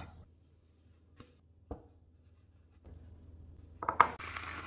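Quiet room tone with two faint clicks, then near the end a sharp knock and crinkly rustling as a ceramic ramekin covered in cling film is handled on a wooden board.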